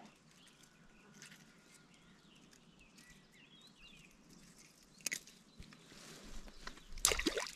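Quiet riverside ambience with faint bird chirps about three seconds in, a sharp click about five seconds in, and a short, louder noise near the end.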